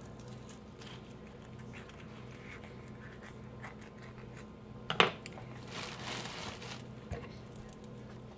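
Small scraping and clicking of a kitchen knife slicing an avocado half held in the hand, with one sharp knock about five seconds in and a longer scrape just after it, over a low steady hum.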